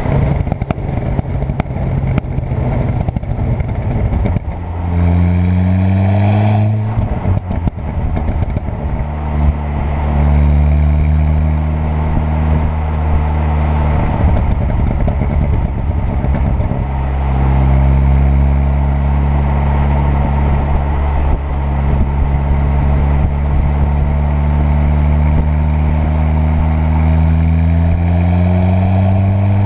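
Turbocharged 2.0 TFSI four-cylinder car engine and exhaust under way. The note rises under acceleration about five seconds in, drops about seven seconds in with sharp exhaust pops and crackles, then holds a steady cruising drone, interrupted briefly around fourteen and seventeen seconds. It climbs again near the end.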